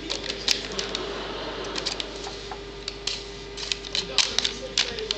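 A cat batting and scrabbling at a paper receipt on a hardwood floor: quick, irregular clicks and crinkles of paper and claws, over a faint steady hum.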